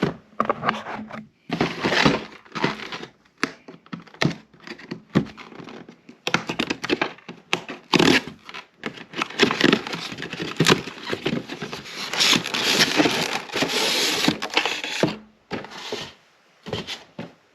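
An electric toothbrush's retail box and packaging being opened by hand: tearing and crackling with many sharp clicks and snaps, and a denser stretch of rustling in the second half.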